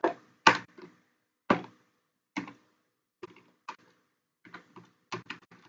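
Keystrokes on a computer keyboard while code is being edited: single sharp clicks every half second to a second, then a quicker run of keys near the end.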